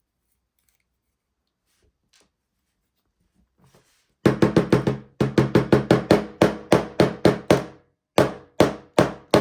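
Union oval lock cylinder rapped again and again against a hard surface to knock stuck pins out of a pin chamber. About four seconds in, a fast run of loud, ringing knocks starts, about four a second, breaks off briefly and goes on. The pins are held fast by sprayed-in GT85 lubricant.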